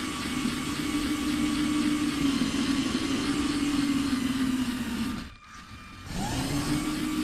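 Electric whine of a LEGO Technic RC car's Powered Up L motors and bevel-gear drive as the car drives. The pitch is steady and sags a little, cuts out briefly about five seconds in, then rises again as the motors spin back up.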